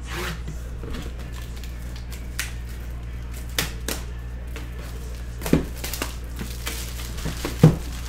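A sealed cardboard trading-card hobby box being opened: a small blade slits its plastic shrink wrap and the box is turned over and handled. The result is scattered taps, crinkles and knocks, the sharpest near the end as the box is set down on the table, over a steady low hum.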